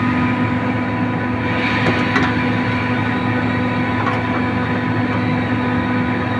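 Compressor machine running with a steady mechanical hum and whine, with a few light clicks over it about two and four seconds in.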